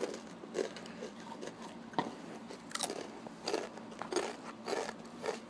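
Takis rolled tortilla chips being bitten and chewed: a string of irregular crunches, roughly two a second.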